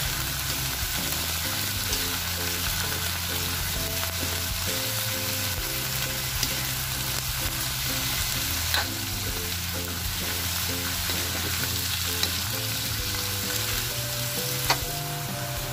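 Shredded cabbage and shrimp sizzling in a hot pan as they are stir-fried, with a few sharp clicks of the spatula against the pan, the loudest near the end. Quiet music runs underneath.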